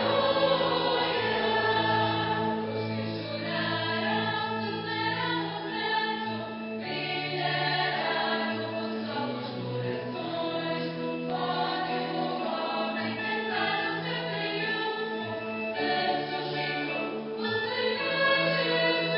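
A church choir singing a hymn in long, sustained phrases, with held low notes beneath the voices.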